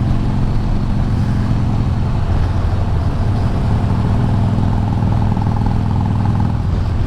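Harley-Davidson Iron 883's air-cooled V-twin running steadily under way, with wind noise over it; the engine note shifts about two seconds in.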